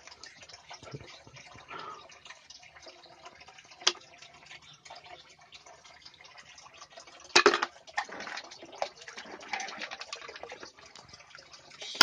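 Water splashing and dripping as wet hands shell snails over a basin of water, with small clicks throughout and two sharp knocks, one about four seconds in and a louder one about seven and a half seconds in.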